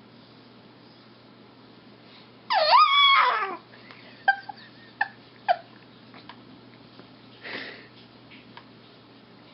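A five-week-old baby's squeaky vocal noises: one loud squeal lasting about a second, a couple of seconds in, then a few short squeaks and a soft breathy sound.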